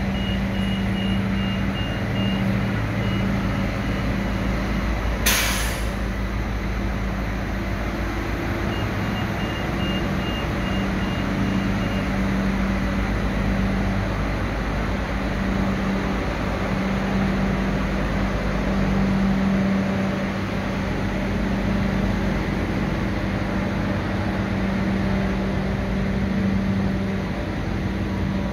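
Diesel railcar engine idling with a steady low hum. A high electronic beep repeats about twice a second for a few seconds at the start and again around ten seconds in. A short sharp hiss of air comes about five seconds in.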